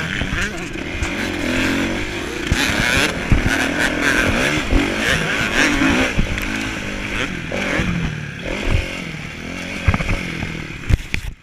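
Kawasaki motocross bike's engine, heard from a camera mounted on the bike, revving up and down repeatedly while riding on a dirt track, with a few sharp knocks near the end.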